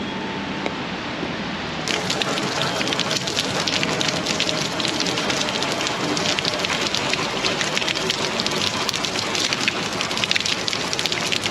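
Steady rain falling on wet pavement. About two seconds in it turns louder and crisper, a dense spatter of close drops.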